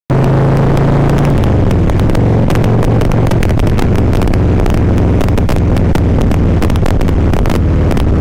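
Harley-Davidson Ultra Classic Limited's V-twin engine running steadily while riding on the road, its note settling slightly lower about a second in, with wind buffeting the helmet-mounted microphone.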